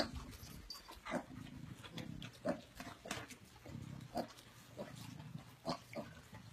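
Pig grunting in short low bursts about once a second as it feeds, mixed with sharp clicks and crunches of chewing.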